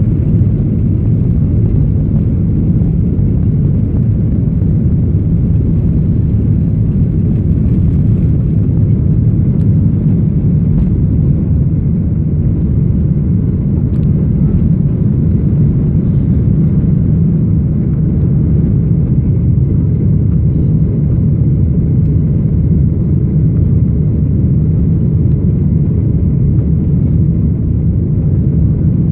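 Boeing 737 jet engines at takeoff thrust, heard inside the cabin as a loud, steady low rumble through the takeoff roll, liftoff and initial climb.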